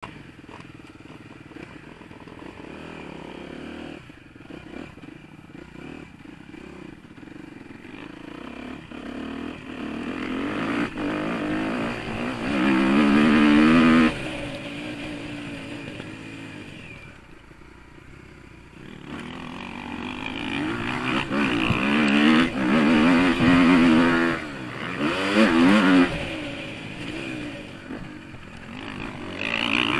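Motocross dirt bike engine, heard close up from the bike itself, revving up and falling back over and over as it is ridden round the track. It is quieter for the first ten seconds or so, then comes in loud rising surges, cutting off sharply about 14 seconds in and surging again from about 20 to 26 seconds.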